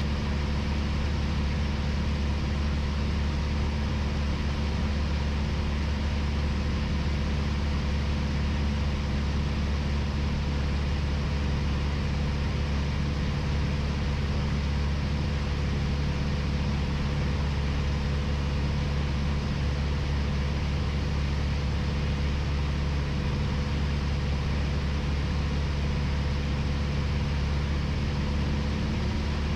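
Piper Warrior's four-cylinder Lycoming O-320 engine and propeller droning steadily in flight, a constant low hum with no change in pitch or level.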